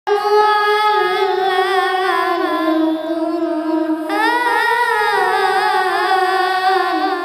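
A boy's voice reciting the Quran in a melodic chant (tilawat), with long held notes and wavering ornaments. After a short breath near three seconds, a second, higher phrase begins about four seconds in.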